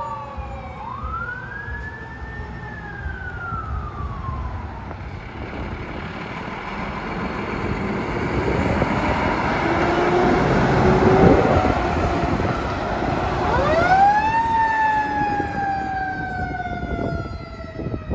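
Fire truck sirens wailing, each rising and then falling slowly, once near the start and again near the end, with the truck's engine and road noise loudest around the middle.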